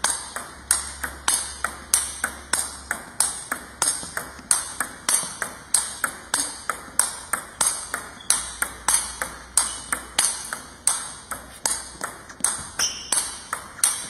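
Table tennis topspin rally: the celluloid-type ball ticking off rubber paddles and bouncing on the table in a steady, even rhythm of about three to four sharp clicks a second, unbroken throughout.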